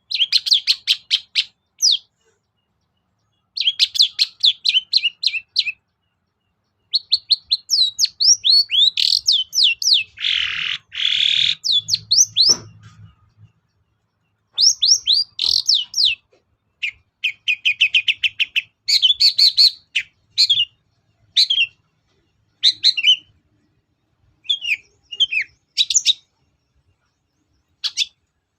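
Long-tailed shrike (cendet) singing in runs of rapid, high chirping notes, each run one to two seconds long with short pauses between. About ten seconds in there is a harsh rasping note.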